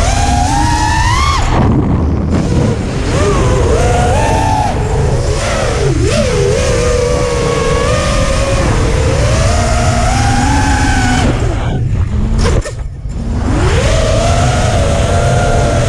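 FPV freestyle quadcopter's brushless motors whining, their pitch rising and falling constantly with the throttle. The whine cuts out briefly twice, about two seconds in and again near twelve to thirteen seconds, as the throttle is chopped. A steady low wind rumble runs underneath.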